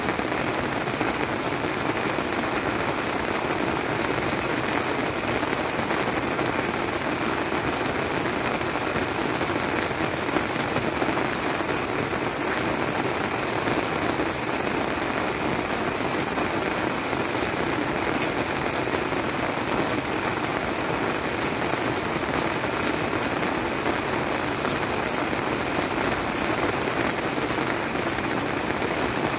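Steady monsoon-season rain falling, an even, unbroken hiss that neither builds nor eases.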